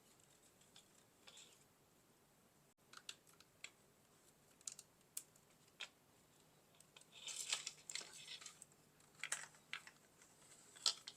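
Faint scattered clicks and short scraping of small plastic parts and wiring being handled while a robot vacuum is disassembled, with a longer patch of scraping a little past the middle and a few sharper clicks near the end.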